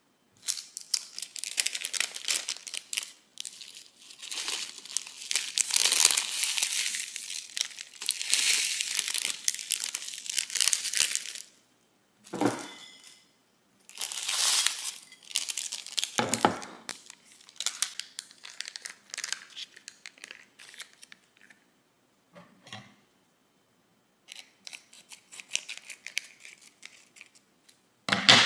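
Thin plastic salad-kit topping packets crinkling and tearing as they are opened and shaken out over a plate. The crinkling is dense for about the first eleven seconds, then comes in shorter bursts with a few soft thumps between them.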